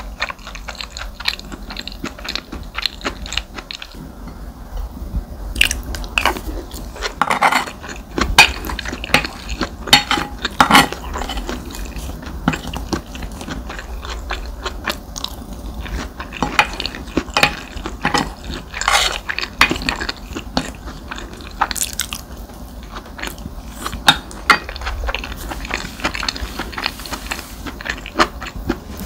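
Close-miked chewing and biting of fried rice, with many small irregular wet clicks and crunches.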